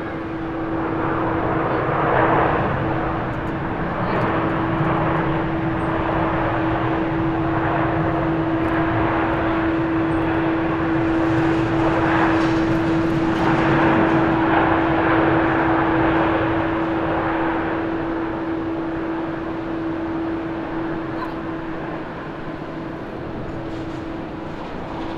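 Rolls-Royce Trent XWB jet engines of an Airbus A350-900 during the landing rollout, a steady hum under a rushing noise that swells about two seconds in, stays loud for some fifteen seconds, then fades.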